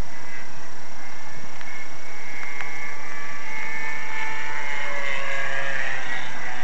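Electric motor and propeller of a GWS Corsair foam RC warbird whining in flight, a thin tone whose pitch wavers up and down and drops slightly near the end as the plane passes.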